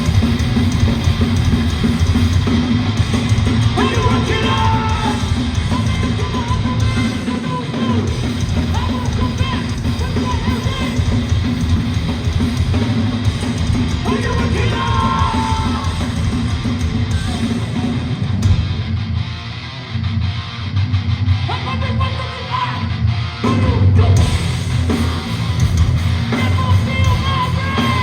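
A live hardcore band plays loud, with distorted guitars, bass and drums, and yelled vocals that come in and out. For a few seconds past the middle the cymbals and top end drop away, then the full band returns.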